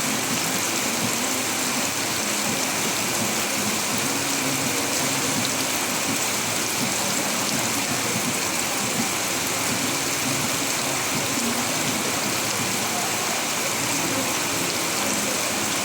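Rain falling steadily, a dense, even hiss with no breaks or single drops standing out.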